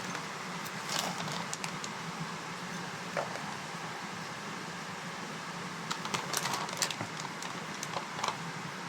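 Nacho corn chips being crunched, with irregular crisp crackles over a steady background hiss: a few about a second in and a denser run around six to seven seconds in.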